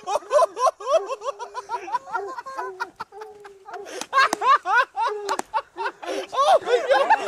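People laughing hard in a long run of short, high-pitched bursts of laughter, with a few sharp clicks among them.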